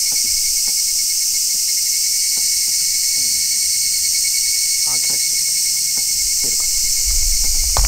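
A chorus of cicadas shrilling steadily and loudly, with a few faint ticks and one sharper knock near the end.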